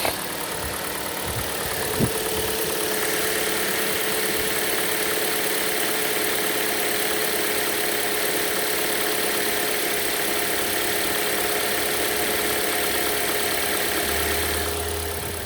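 Hyundai/Kia G4NA four-cylinder petrol engine idling cold, running steadily, with a single click about two seconds in. The owner suspects tapping from the hydraulic lifters, which he says comes and goes.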